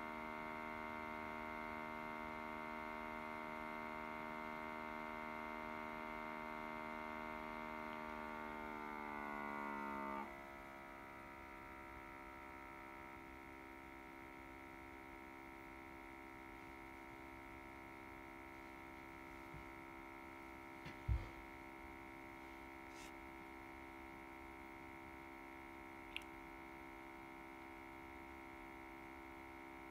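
Audio feedback drone: a steady buzzing hum with many evenly spaced overtones. About eight seconds in its pitch creeps upward, and about ten seconds in it switches abruptly to a quieter buzz of a different pitch. There is a sharp click about 21 seconds in and a smaller one about 26 seconds in.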